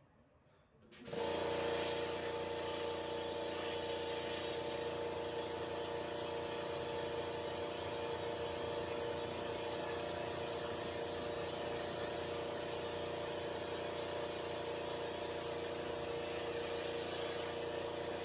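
Schulz Tufão direct-air compressor running, with a steady hum and a hiss of air. It switches on about a second in and cuts off near the end.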